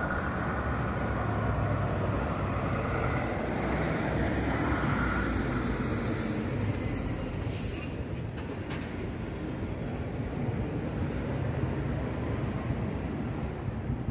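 City street traffic: a steady rumble of vehicles passing that swells and fades, with a thin high tone for a couple of seconds about five seconds in.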